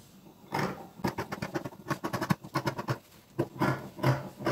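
Scissors cutting through folded fabric: a quick run of blade snips from about half a second in, then a few slower, separate cuts.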